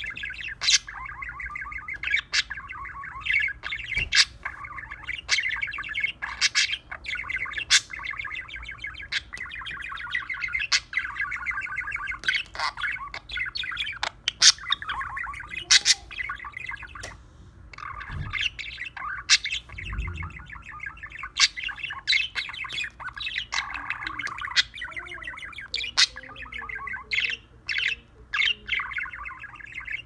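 Budgerigar warbling: a continuous chattering song full of rapid sharp clicks and squeaky chirps.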